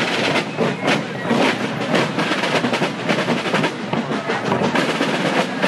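Snare and bass drums of a marching drum corps playing a steady cadence, with rolls.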